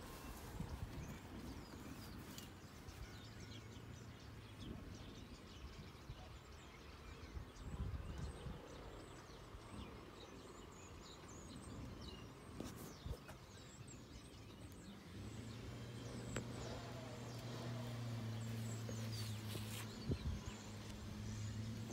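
Outdoor field ambience: a low rumble on the microphone with faint, scattered bird chirps. From about fifteen seconds in, a steady low hum joins and continues.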